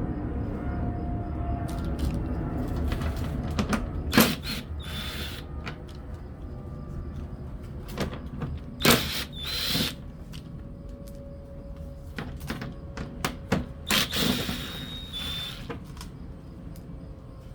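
Scattered clicks, knocks and clatter of tools and metal parts being handled, with brief high squeaks, over a low rumble that slowly fades.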